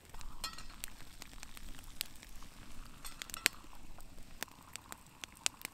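Campfire crackling: irregular sharp pops and snaps, with one louder snap a little past halfway.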